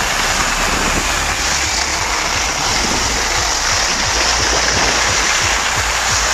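Skis sliding over the snow in a steady rushing scrape, with wind rumbling on the microphone underneath.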